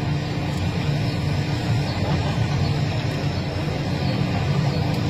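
Steady low mechanical rumble with a constant hum running through it.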